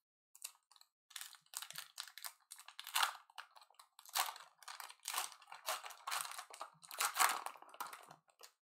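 Wrapper of a pack of baseball trading cards being torn open and peeled back by hand, crinkling in irregular bursts as the cards are pulled out of it.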